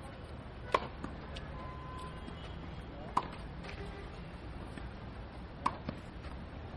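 Tennis ball struck by a racket three times, about two and a half seconds apart, each a sharp pop, with fainter knocks of the ball landing on the clay court between them.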